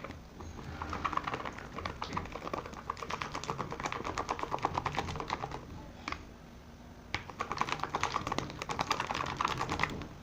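Slime being stirred hard in its container as activator is worked in: fast, dense sticky clicking that stops for about a second around six seconds in, then resumes.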